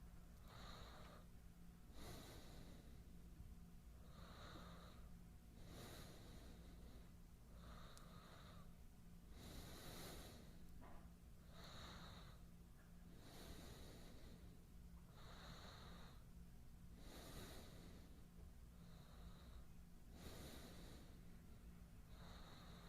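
A man breathing slowly and softly close to the microphone, a faint rush of air every second or two, breaths in and out alternating, over a steady low hum.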